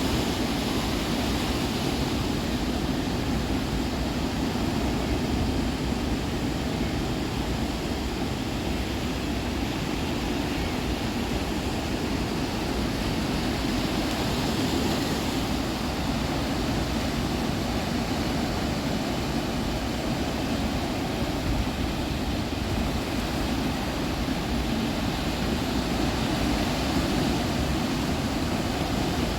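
Ocean surf: a steady, continuous rush of breaking waves, swelling slightly now and then.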